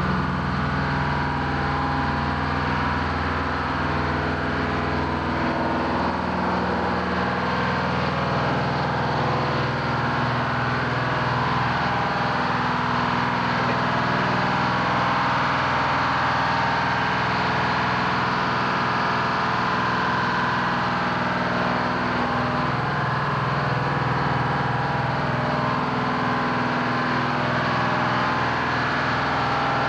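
Shipboard engine machinery running steadily below decks: an even, loud drone with a low pulsing beat that comes and goes.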